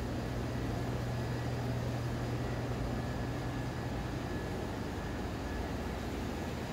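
Steady low machine hum with an even rush of air from commercial kitchen ventilation and refrigeration equipment running.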